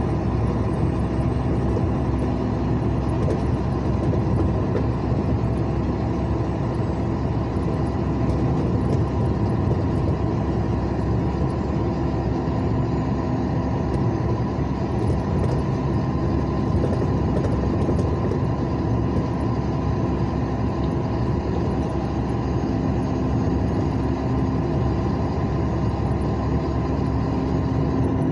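Steady engine and tyre noise of a moving vehicle heard from inside its cabin, a constant low drone with a faint hum rising and falling in strength.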